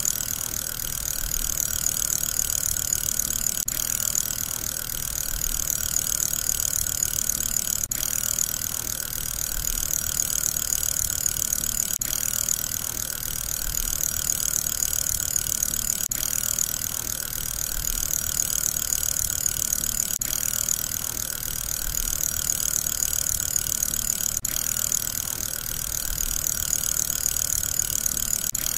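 Steady whir of a spinning fidget spinner's bearing, repeating as a loop that swells and eases about every four seconds with a faint click at each repeat.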